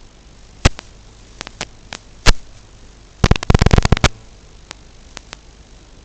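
Steady static hiss with scattered sharp pops. About three seconds in comes a second-long burst of rapid crackling, and a few faint clicks follow. It is the noise of an analog FPV video link's audio channel.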